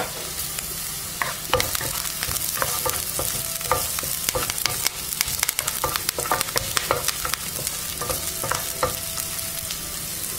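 Garlic, green chillies and curry leaves frying in a spoonful of hot oil in a small pan: a steady sizzle with many sharp crackles, while a spoon stirs them around the pan.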